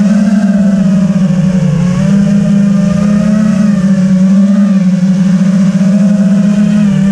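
FPV quadcopter's motors and propellers buzzing steadily, the pitch wavering up and down as the throttle changes.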